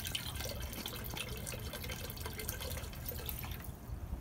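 Cooling water from the HPA compressor's circulation hose trickling and splashing into a bucket of water, a steady patter that thins out about three and a half seconds in.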